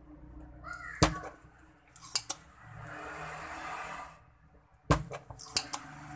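Sharp clicks and clinks of small metal tools being handled at a workbench during soldering work, about five in all, with a soft hiss lasting about two seconds in the middle.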